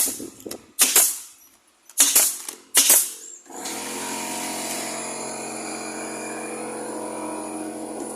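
Nail gun firing four sharp shots about a second apart, driving fasteners into cabinet panels. About three and a half seconds in, a steady motor drone with a hiss starts and keeps running.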